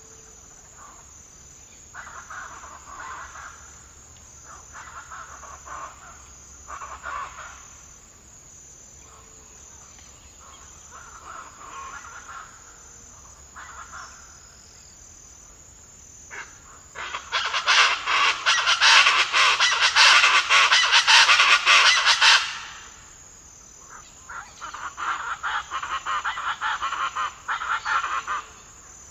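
Wild birds calling in repeated bouts over a steady high insect trill, with a loud, dense chorus of calls in the middle lasting about five seconds and a shorter bout near the end.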